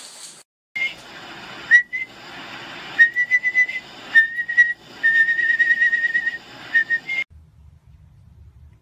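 A person whistling to a puppy in a run of high whistled notes, the longest one warbling. The whistling stops abruptly near the end.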